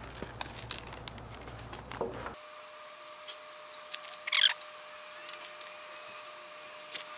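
Faint handling noises with small clicks, and a short rustle about four seconds in.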